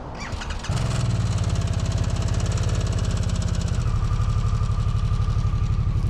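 Harley-Davidson Sportster V-twin engine started on the electric starter: a brief crank, then it catches about half a second in and settles into a steady, pulsing idle.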